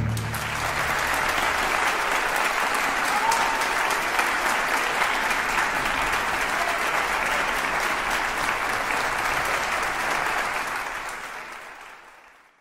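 Crowd applauding: steady dense clapping that fades out over the last couple of seconds.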